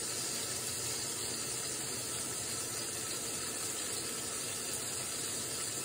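Burger meat frying in a skillet, giving a steady, even sizzle.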